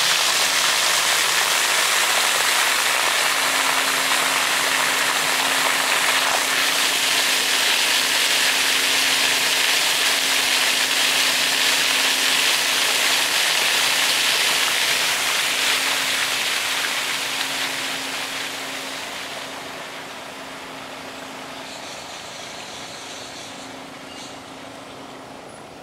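Steady rushing hiss with a faint steady hum beneath it, fading to a quieter level over a few seconds about two-thirds of the way through.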